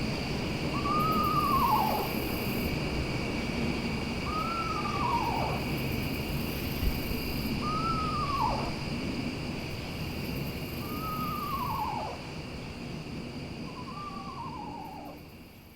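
An owl calls five times, about every three seconds, each call a short whinny that rises briefly and then falls. A steady high-pitched hum runs underneath, and everything fades out at the end.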